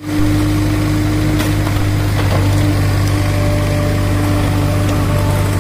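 Heavy diesel engine running steadily with an even low hum and a few faint clicks.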